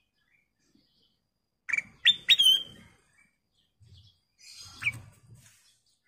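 Ruby-throated bulbul (kutilang emas) giving short, sharp chirping calls: a quick cluster about two seconds in, the loudest part, and another call near five seconds. Soft low thumps sound under the calls.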